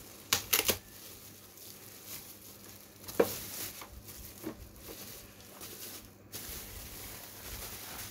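Bubble wrap being handled and pulled open by hand: plastic crinkling and rustling, with sharp crackles about half a second in and again around three seconds in.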